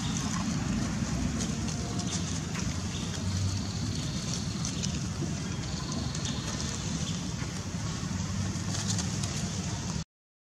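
Steady low outdoor rumble with a few faint clicks. The sound drops out completely for a moment near the very end.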